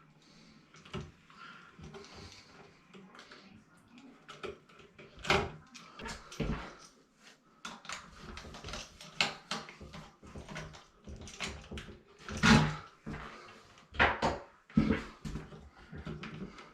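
A series of irregular knocks and clicks, some sharper than others, with the loudest a little past the middle.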